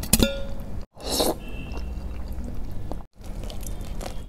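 Close-up eating sounds in short cut-together clips: a fork clinks once on a glass bowl with a short ring, noodles are slurped about a second in, and near the end fried chicken is bitten and chewed.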